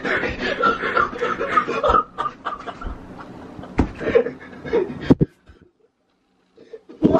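People laughing and giggling, loudest in the first two seconds, with a few sharp knocks. The sound cuts off about five seconds in.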